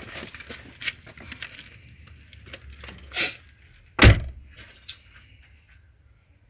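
Clicks and rattles of small tools and parts being handled, with one loud knock about four seconds in.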